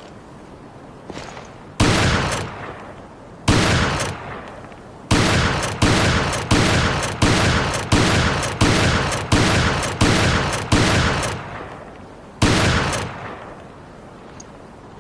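M3 shotgun firing: two single shots about a second and a half apart, then a fast run of about ten shots at roughly two-thirds of a second apart, and one last shot about a second after the run. Each blast rings off over most of a second.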